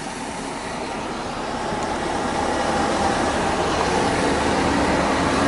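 Lorry engine running close by, a steady rumble that grows gradually louder.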